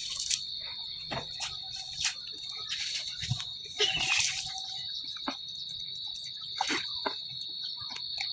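Steady high-pitched insect drone, cricket-like, held without a break, with scattered light clicks and knocks over it.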